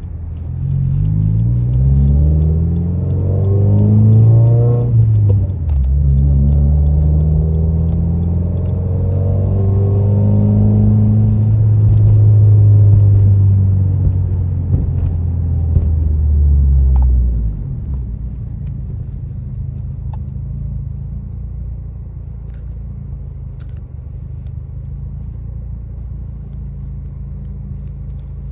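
Subaru WRX's turbocharged flat-four engine heard from the driver's seat, accelerating with its note rising, a brief dip at a gear change about five seconds in, then pulling again. After about seventeen seconds the engine note drops away as the throttle is released, leaving a steady low rumble of the car rolling on.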